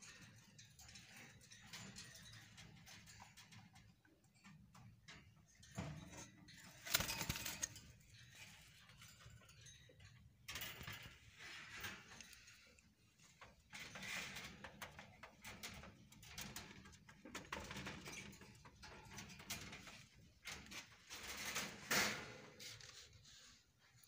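Faint, irregular rustling and knocking from a phone and a bird nest box and cage being handled, with two louder sharp knocks, one about seven seconds in and one near the end.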